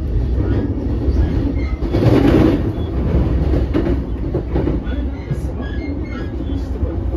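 Running noise inside a JR East E233 series 5000 commuter train car: a steady low rumble of wheels on rail with some clatter, rising into a brief louder rush about two seconds in.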